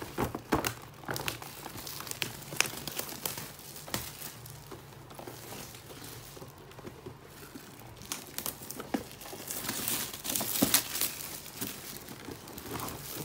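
Crinkling and crackling of a large cardboard gift box's clear plastic window as a child handles and moves it, with scattered clicks and knocks; the crackling is densest and loudest near the end.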